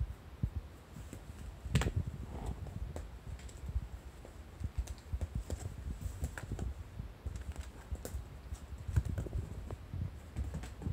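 Kittens' paws scampering and pouncing on tatami mats and a futon while they play-fight, heard as irregular soft taps and thumps. The loudest thump comes about two seconds in.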